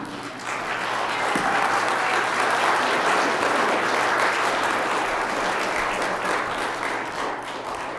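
Congregation applauding: many people clapping together, swelling about half a second in, holding steady, and dying away near the end.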